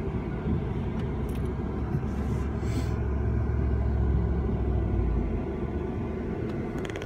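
Road and engine noise inside a moving car's cabin: a steady low rumble that swells around the middle and eases off a little after five seconds.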